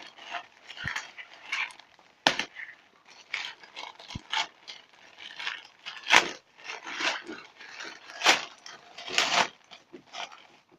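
Packaging being opened by hand: a string of short rustling, crinkling bursts with a few sharp clicks and snaps in between.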